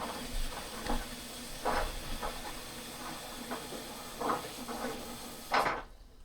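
Water hissing as it runs into a washing machine's drum while the machine fills during a tub-clean cycle. The sound is steady, with a few faint knocks, and it drops away shortly before the end.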